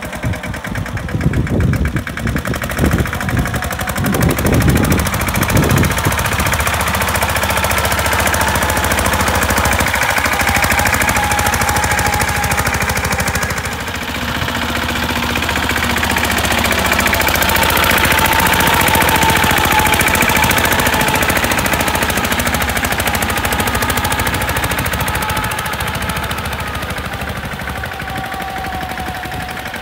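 Mahindra Yuvraj 215 mini tractor's single-cylinder diesel engine running under load as it drives its cage wheels through a flooded paddy, a fast, even knocking beat that swells in the middle and eases toward the end.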